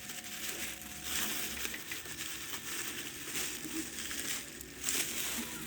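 Crinkling, rustling handling noise with a few small scattered clicks.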